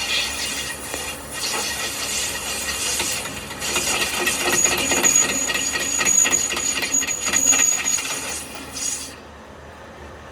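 Metalworking on a broken truck rim: a loud hiss with rapid crackling and, in the middle, a steady high whine. It cuts off suddenly about nine seconds in.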